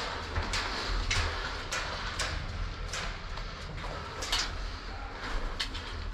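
Sharp snaps or pops at uneven intervals, roughly ten of them, over a steady low rumble.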